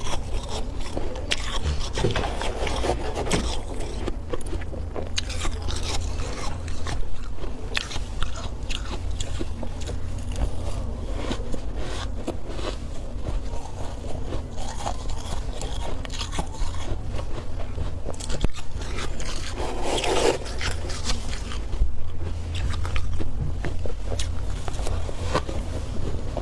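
Thick, powdery freezer frost being scraped and bitten, with continuous irregular crisp crunching over a steady low hum.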